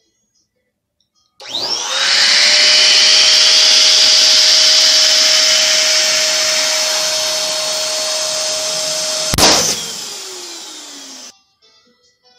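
Electric balloon pump switching on and running with a steady whine while inflating a latex balloon, until the balloon bursts with a sharp pop about 9.4 seconds in. The pump keeps running briefly after the pop, its pitch sliding down, then cuts off suddenly.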